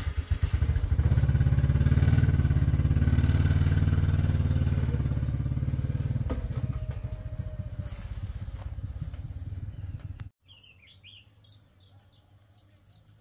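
Small step-through motorcycle engine starting and running, then pulling away and fading as it rides off. It cuts off abruptly about ten seconds in, leaving faint bird chirps.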